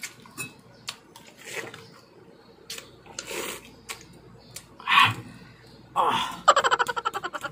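Close-up mouth sounds of raw pineapple being eaten by hand: wet chewing and sucking with sharp lip-smack clicks and a few short slurps. Near the end comes a loud, quickly pulsing vocal groan that falls slightly in pitch.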